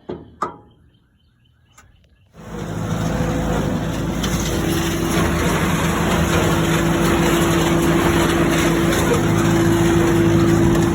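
A farm tractor engine running steadily, cutting in abruptly a couple of seconds in after a quiet stretch.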